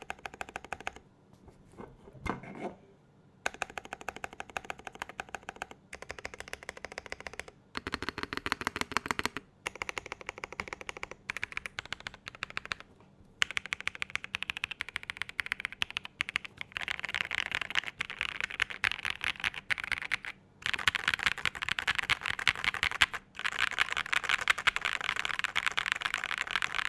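Typing test on a Zoom75 mechanical keyboard with WS Morandi switches on a flex-cut aluminium plate: a fast, steady clatter of keystrokes in bursts with short pauses, sparse at first and quickening toward the end. The WS V3 spacebar stabilizer still ticks despite being lubed with Krytox 205g0, according to the owner.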